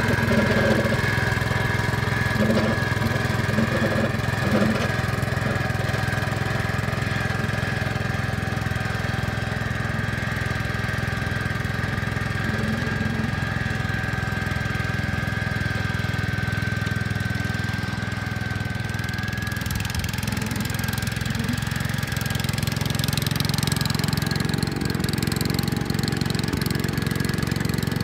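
Gravely 5665 tractor's engine running steadily, with a steady whine over it. Around twenty seconds in the sound changes and takes on a harsher, brighter tone.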